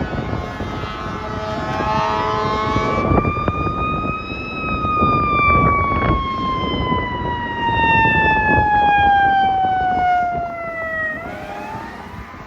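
Fire engine siren winding up, then falling slowly in pitch over about six seconds and starting to climb again near the end. A steady air-horn blast sounds briefly as the siren rises.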